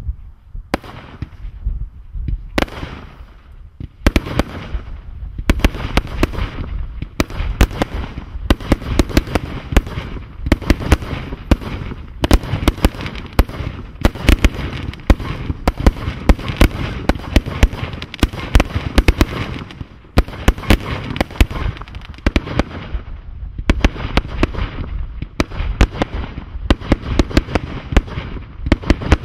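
Fireworks International's Thunder King firework going off: shots launching one after another and bursting overhead in a near-continuous barrage of sharp pops and bangs, with a short lull about twenty seconds in.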